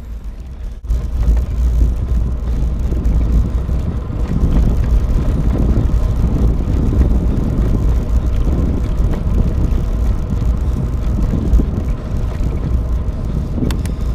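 Wind noise on the microphone of a camera on a moving bicycle, mixed with tyre and road noise, rising and falling unevenly. A few sharp clicks near the end.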